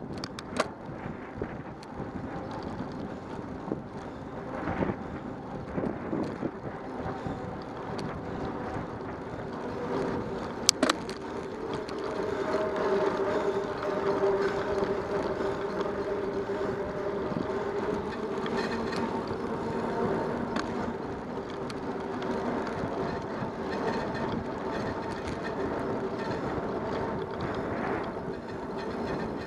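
Bicycle rolling along asphalt: steady tyre rumble mixed with wind on the microphone, with a couple of sharp clicks from the bike, one right at the start and one about eleven seconds in. From about twelve seconds in it grows a little louder and a steady hum joins the rumble.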